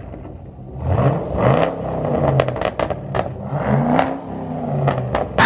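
Car sounds, with a low engine note gliding up and down, and scattered sharp clicks and clatter. Right at the end, a Chevrolet SS's V8 starts cold and suddenly gets loud.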